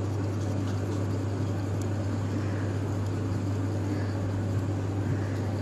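Steady background noise: a constant low hum with an even hiss over it, unchanging throughout.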